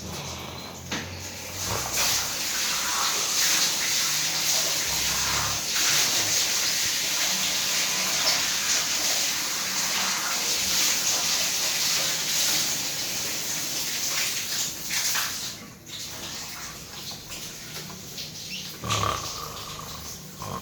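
A man snoring loudly, with rough, noisy breaths that drop off briefly about three-quarters of the way through.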